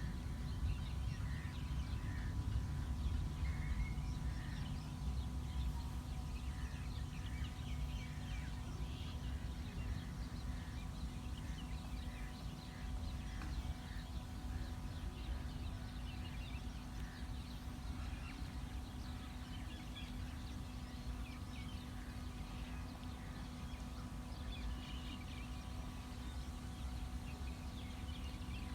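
Many small birds chirping, with short high calls overlapping throughout, over a steady low rumble and a faint constant hum.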